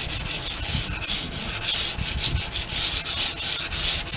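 Steel knife blade stroked quickly back and forth over sandpaper on a Washboard freehand sharpening board: a steady run of scraping strokes, about two to three a second.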